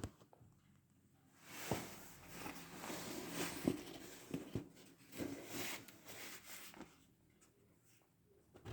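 Faint rustling with scattered light clicks and taps, starting about a second and a half in and dying away near the end.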